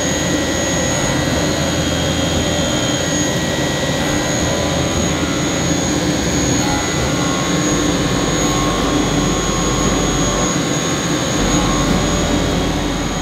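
DN Solutions PUMA 2600SY II lathe drilling 316 stainless steel with a Kennametal SGL drill on its live tooling: a steady whir and hiss of spindle and flood coolant, with a high steady whine. The machinist takes the sound as a sign that the drill is still cutting well.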